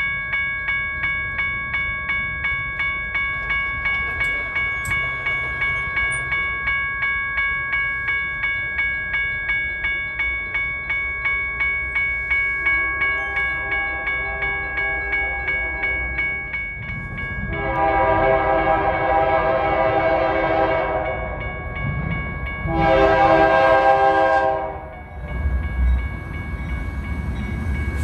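Railroad grade-crossing warning bell starts ringing and keeps dinging about twice a second. An approaching diesel freight locomotive's air horn sounds the crossing signal over it: a fainter long blast, a loud long blast, a short one, then another long blast begins near the end, with the low rumble of the train growing.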